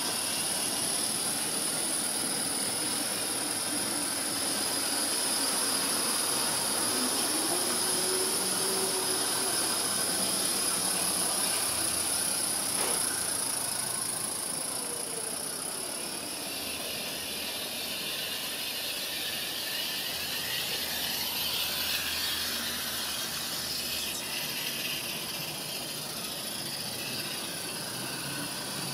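Five G scale live steam locomotives running coupled together, a steady hiss of steam over the working of the engines.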